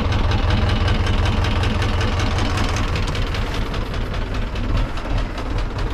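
Tractor diesel engine running steadily close by, a fast even beat of firing strokes over a deep hum.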